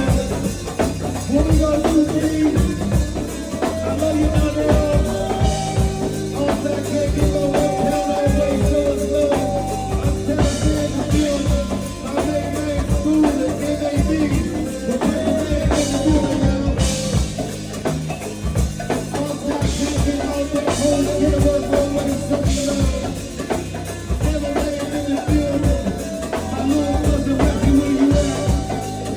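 Live band playing jazzy music: a drum kit keeps a steady beat under held melody notes, with bright crashes every few seconds.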